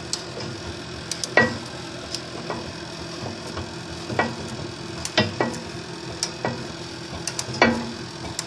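Socket wrench on a long extension turning out a bolt in a snowblower's auger housing: scattered, irregular metal clicks and clinks of the socket and extension against the bolt and housing, over a steady low hum.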